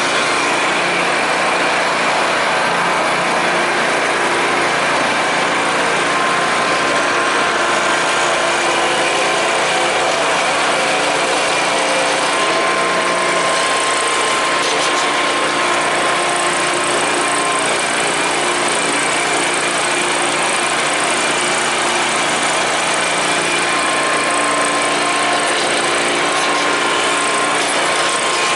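Simplicity Legacy garden tractor's engine running steadily as the tractor is driven across grass, at an even level throughout.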